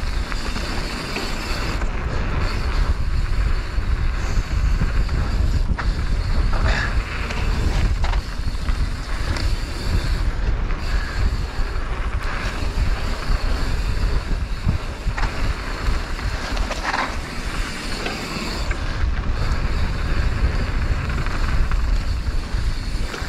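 Raw ride sound of a mountain bike on a dirt flow trail: tyres rolling over the ground with wind rushing over the camera microphone, and a few short clicks and rattles from the bike now and then.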